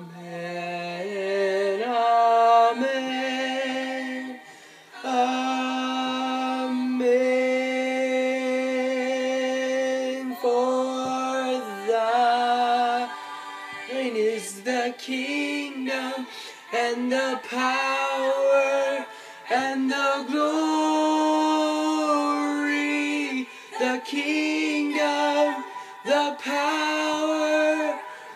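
A young man singing solo and unaccompanied, in long held notes that move in steps, rising step by step at the start, with short pauses for breath.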